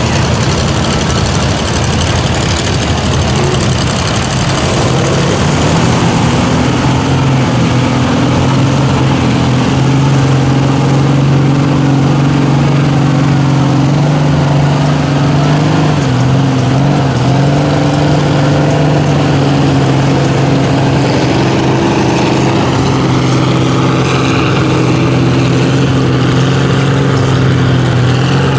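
Big engines of lifted mud bog trucks on giant tires running loudly and steadily as they drive through a muddy pit, the engine pitch dipping and rising briefly about halfway through.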